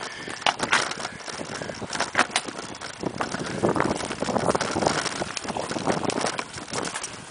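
Mountain bike ridden fast over a dirt forest singletrack: a steady rumble of knobby tyres on the trail, with frequent sharp rattles and knocks as the bike jolts over bumps and roots, busiest a little past the middle.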